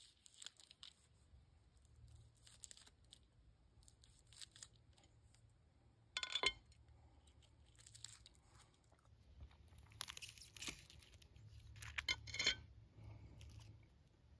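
Thin plastic wrapping on a sausage being torn and peeled off, crinkling in short scattered bursts, with one louder clack about six seconds in.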